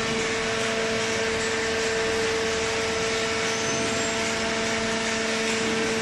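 Hydraulic cardboard baler's electric motor and pump running steadily: a constant hum with a whine over an even rushing noise.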